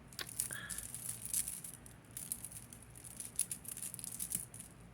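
Costume jewelry chains and beads clicking and rattling as they are handled and untangled: a run of light, irregular clicks.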